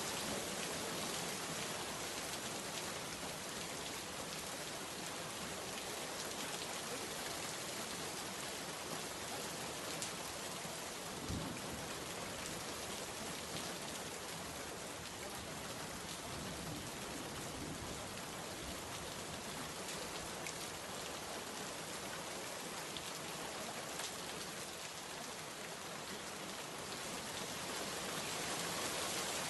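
Steady rain falling, an even hiss of drops on a surface. About a third of the way through there is one brief low thump.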